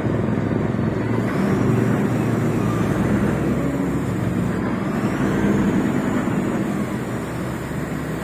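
Heavy diesel engine running steadily under load, with a faint high whine slowly rising and falling.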